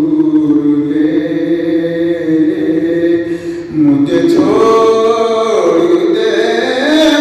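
A man singing a naat unaccompanied, drawing out long held notes with slow melodic turns. About three and a half seconds in there is a short breath pause, then a new phrase starts on a higher held note.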